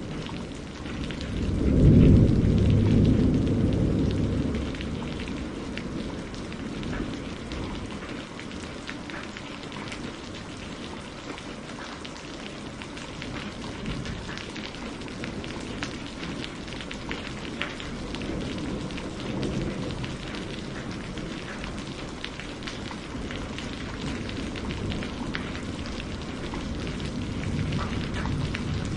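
Steady rain with a patter of individual drops, and a low rumble of thunder swelling about two seconds in and dying away over a few seconds. Fainter rumbles return twice later.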